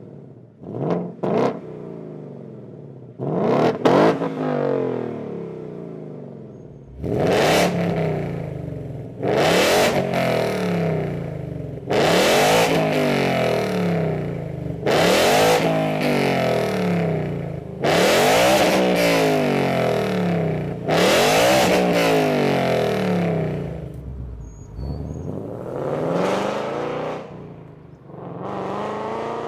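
2018 Ford Mustang GT's 5.0 L V8, fitted with Corsa long tube headers and the stock active exhaust in sport mode, revved hard: two quick blips, then a string of revs that each climb and drop back to idle, and a longer pull near the end.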